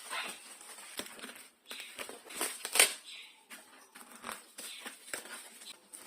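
Packaging being handled and opened: irregular rustling and crinkling with several sharp clicks and knocks, the loudest about three seconds in.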